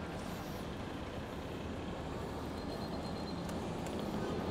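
Steady road and traffic noise on wet city streets, heard from a moving bicycle.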